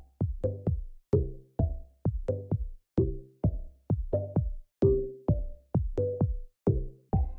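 Background electronic music with a steady drum-machine beat and bass.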